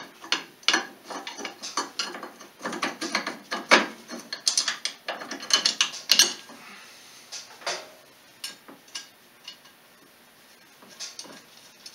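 Ratchet wrench clicking in quick runs while bolts on an ATV's rear suspension are run in. About two thirds of the way through it thins out to a few scattered metal clicks.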